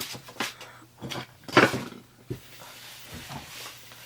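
A few short knocks and clatters of small objects being handled, the loudest about a second and a half in, with quieter rustling between.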